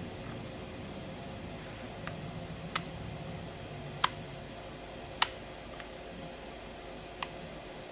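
Sharp metallic clicks and taps, about six spread over several seconds, the loudest two near the middle, as the parts of a small CNC machine vise are handled and fitted while it is reassembled and its jaws are set to be timed. A steady low hum runs underneath.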